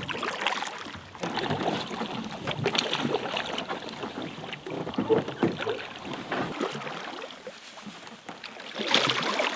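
Kayak paddle strokes: the paddle blades dipping into calm water and splashing unevenly, with water running off the blades.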